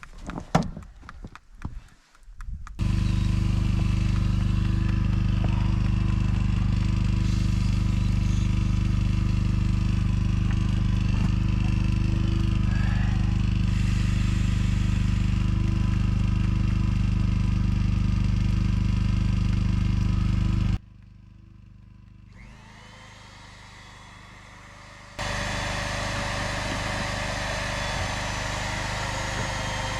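A few faint knocks, then a small engine running at a steady speed that stops abruptly about twenty seconds in; after a few quiet seconds a steady engine sound resumes, quieter and with more hiss.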